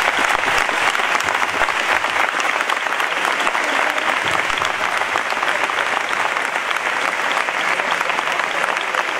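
A large crowd applauding: many hands clapping steadily and densely, blending into a continuous wash of claps.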